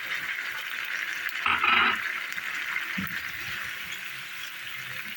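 Mutton with yogurt and spices sizzling steadily in ghee while being bhuna-fried for korma, with one brief louder burst about a second and a half in.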